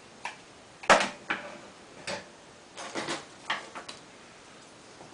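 A series of short, sharp clicks and knocks, about seven of them, the loudest about a second in, then they stop: hands handling the silicone sealant tube and tools while sealing a tent's stove jack.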